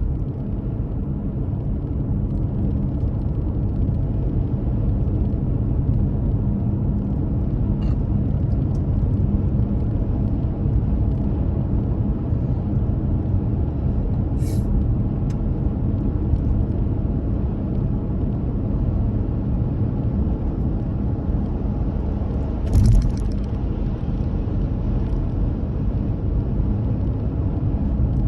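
Steady low rumble of a car driving along the road, with one short thump about two-thirds of the way through.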